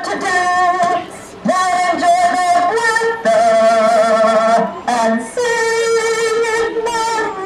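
A woman and a man singing a duet in long held notes, each about a second long with short breaks between, at times both voices sounding together.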